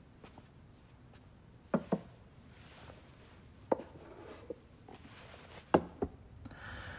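Light knocks and clicks of a wooden food box and its dishes being handled and set down: a quick double knock about two seconds in, a single knock near four seconds, and another sharp double knock near six seconds.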